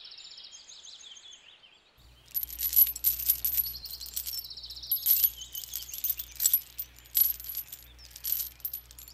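Small metal tow chain clinking and jingling in quick irregular clinks as it is handled and unhooked from a toy tractor's hitch, starting about two seconds in. Birds chirp faintly.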